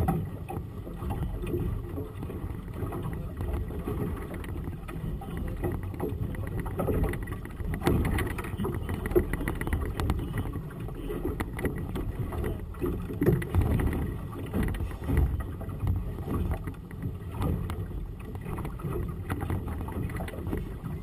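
Wind gusting over the microphone, with water slapping against the hull of a small motorboat on choppy water; a low, uneven rumble with occasional knocks.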